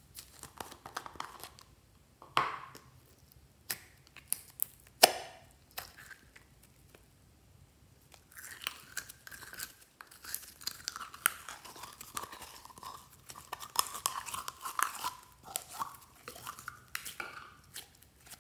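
A few sharp clicks and pops as a plastic slime container is squeezed and opened, then purple glitter slime is pulled out and stretched, giving a dense, sticky crackling and squelching for about eight seconds.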